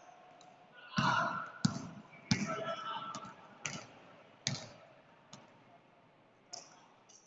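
A basketball bouncing on a gym court floor, about eight sharp, irregularly spaced thuds.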